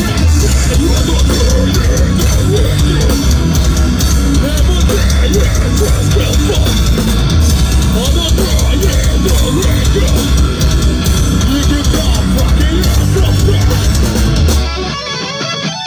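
Metalcore band playing live: heavy drums and bass under distorted electric guitars, loud and dense. About 14.5 seconds in, the drums and bass drop out and the music thins and quietens.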